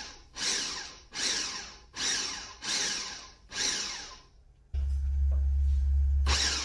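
Electric blender pulsing hot peppers with a little vinegar, a string of short whirring bursts a little under a second apart that chop the peppers coarsely rather than liquefying them. About three-quarters of the way through, a loud steady low hum comes in and stops shortly before the end.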